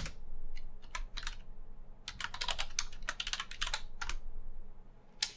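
Typing on a computer keyboard: several quick runs of keystrokes as a new password is typed and then typed again to confirm, ending with a single sharp key press near the end.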